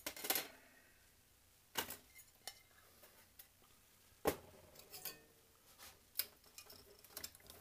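Small tools and parts being picked up and set down on a metal workbench: a scatter of sharp clicks and knocks, the loudest just after the start, near two seconds and about four seconds in.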